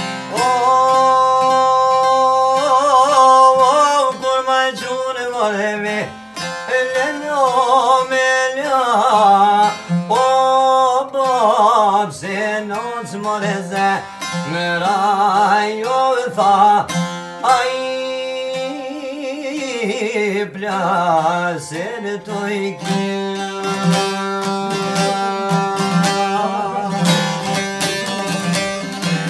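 Two long-necked folk lutes plucked together under a man singing a folk melody with a wavering, ornamented voice. The singing stops about two-thirds of the way through, and the lutes play on alone.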